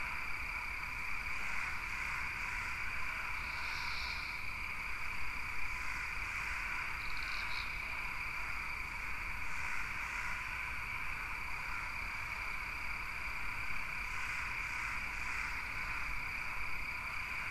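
A steady, high chirring chorus of calling animals, with a few short louder calls over it. It plays as a continuous nature-ambience bed.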